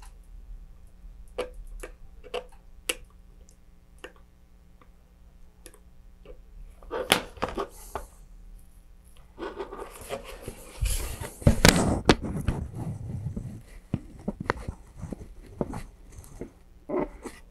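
Handling noise of gloved hands working a thin plastic model rocket fairing: light clicks and scrapes at first, then louder rustling and a heavy thump in the second half as the rocket body is moved.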